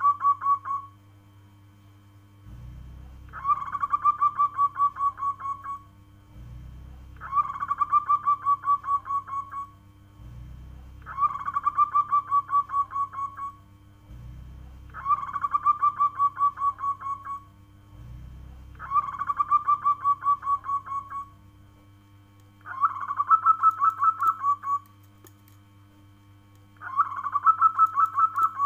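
Zebra dove (local perkutut) cooing: a phrase of quick, rhythmic staccato notes, each about two to three seconds long, repeated about every four seconds, seven times.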